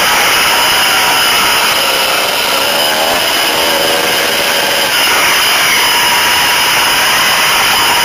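Dirt bike engine running hard over rough trail, its pitch wavering up and down about halfway through as the throttle changes, with rushing noise from the ride on the microphone.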